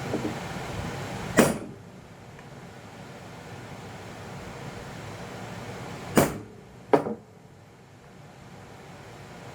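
Three sharp knocks over a steady mechanical noise: one about a second and a half in, then two close together near the end.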